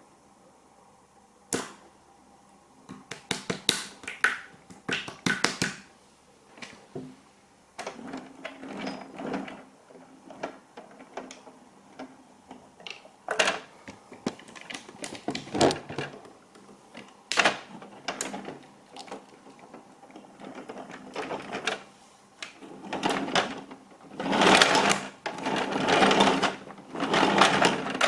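Irregular sharp clicks and short crackling clatters, scattered at first and running together into longer crunchy stretches near the end.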